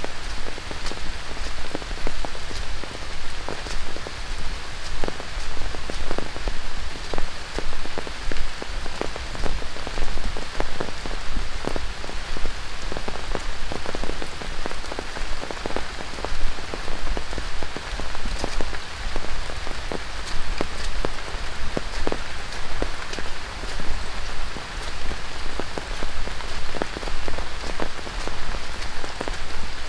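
Heavy tropical rain falling on dense rainforest foliage and a wet dirt trail: a steady hiss with many close, irregular drop impacts.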